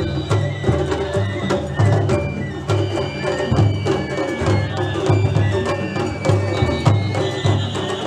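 Japanese festival hayashi music: a steady taiko drum beat under many sharp clicking strikes, with a high flute melody of held notes on top.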